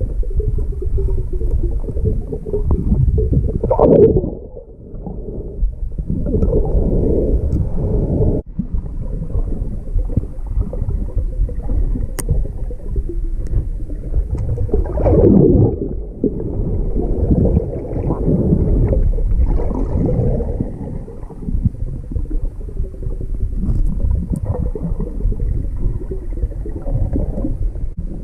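Muffled underwater sound of water moving and gurgling around a submerged camera, a deep uneven rumble with louder surges about 4 and 15 seconds in.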